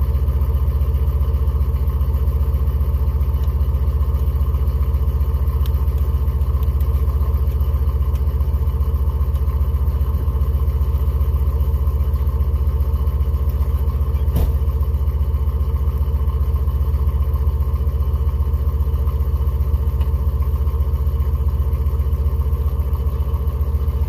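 Ford pickup truck's engine idling steadily at the tailpipe during a cold-weather warm-up after a cold start, with the exhaust pulsing low and even. A single sharp tick about halfway through.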